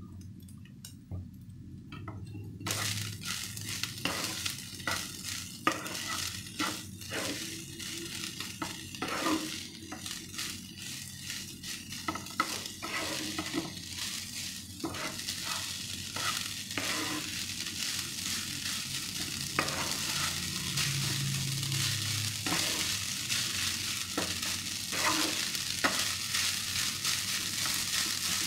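Wooden spatula stirring and scraping rice around a nonstick frying pan, many quick scrapes and taps over a steady sizzle of frying. The stirring starts about three seconds in.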